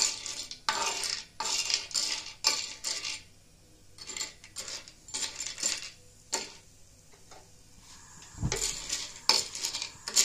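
A steel spoon stirs and scrapes black myrobalans in ghee in a heavy black iron pan, with repeated sharp clinks and scrapes about twice a second. The stirring eases off for a while in the middle, and there is a dull knock about eight and a half seconds in.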